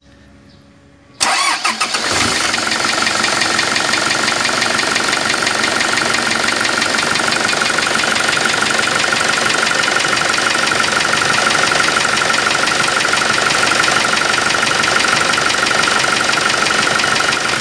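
Truck diesel engine starting about a second in, then idling steadily. The engine is suspected of leaking compression into its cooling system.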